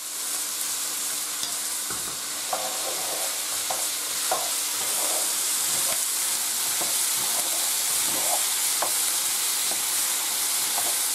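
Chopped onion and red and green peppers sizzling as they sauté in hot olive oil in a frying pan. From about two seconds in, a wooden spoon stirs them with scattered scrapes and light knocks against the pan.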